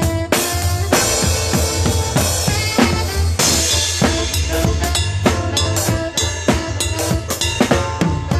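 A live band plays a tune: a drum kit keeps a steady beat of kick and snare strikes under bass and held pitched notes, with a bright crash about three and a half seconds in.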